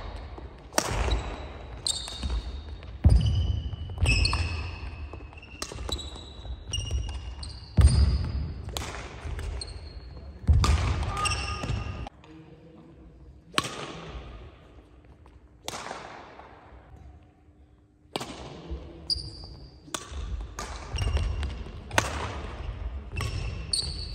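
Badminton rallies on a wooden gym court: sharp racket strikes on the shuttlecock, shoe squeaks and footfalls, echoing in a large hall. There is a quieter break between points in the middle.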